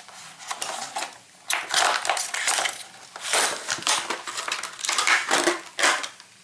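A boxed block plane being unpacked: irregular bursts of cardboard and plastic packaging rustling and crumpling, with light knocks of the tool being handled.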